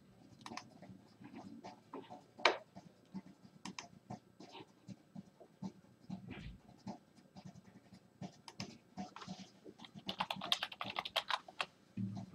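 Computer keyboard typing: scattered key clicks, with a quick flurry of keystrokes about ten seconds in.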